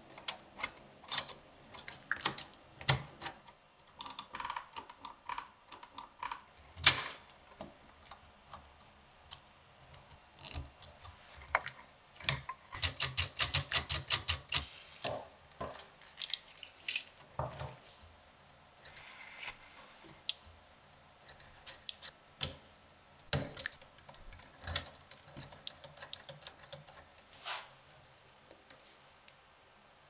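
Metal mechanism of a 1932 Remie Scout portable typewriter being worked by hand: scattered sharp clicks and clatter of its levers, ratchet and typebars, with a quick run of a dozen or so clicks about thirteen seconds in.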